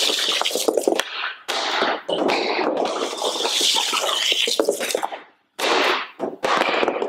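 Off-ice hockey shooting: a stick blade and puck scraping across the hard floor, with sharp clacks as backhand shots are taken and pucks hit the net, in irregular bursts.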